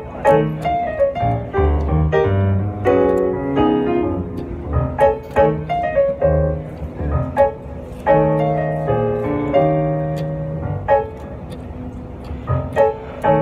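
Piano music played on a keyboard: a run of quick melody notes and chords over low bass notes.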